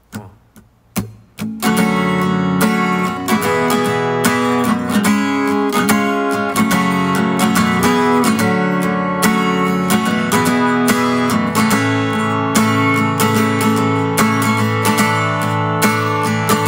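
Dove-model acoustic guitar with a capo, strummed in a steady rhythmic chord pattern as a song's instrumental intro. A few soft single plucks come in the first second and a half before the full strumming starts.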